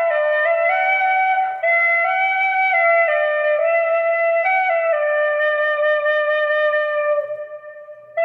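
Irish flute playing a slow solo melody, one note at a time, stepping down and up in pitch. A long held note starting about five seconds in fades away near the end.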